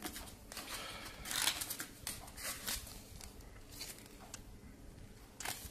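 Faint, scattered rustles and light scrapes of a folded paper manual being slid out of a small cardboard box and handled.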